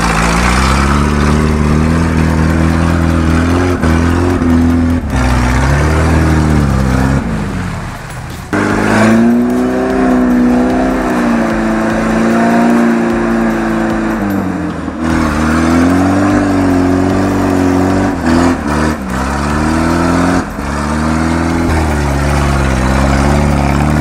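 UAZ-469 engine revving hard in repeated surges as its wheels spin and churn through deep mud, dropping back briefly a few times before pulling again. The engine is probably running without its muffler, which had been torn off earlier.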